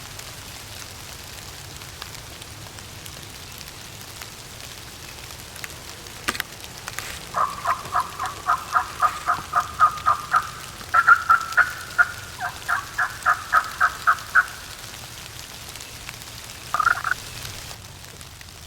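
Turkey yelping: two long, evenly paced runs of short, raspy notes at about four a second, with a brief pair of notes near the end, over a steady hiss of rain.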